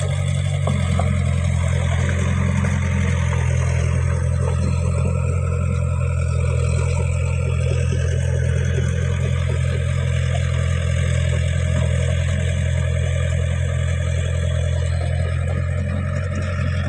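Diesel engine of a Caterpillar E70B crawler excavator running at a steady, unchanging pitch as the machine tracks through flooded mud.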